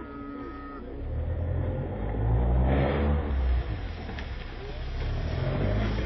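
Rally car engine revving hard as the car leaves the road into roadside grass, its pitch climbing about two seconds in and rising again near the end.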